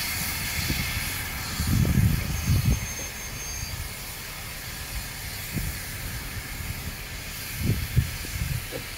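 Steam locomotive 7029 Clun Castle, a GWR Castle class 4-6-0, hissing steam as it draws its coaches away. The hiss fades slowly, and a few low thumps come about two seconds in and again near the end.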